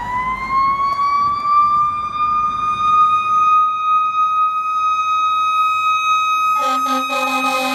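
Fire engine siren climbing in pitch over the first couple of seconds, then holding one steady high tone. Near the end, loud horn blasts in short pulses join it.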